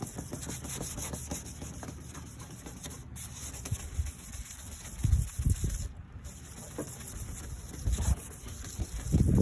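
Sandpaper pad rubbed back and forth over a wet, lubricant-sprayed plastic headlight lens: a steady scrubbing rasp as it sands off the oxidation. A few low thumps come around five and eight seconds in.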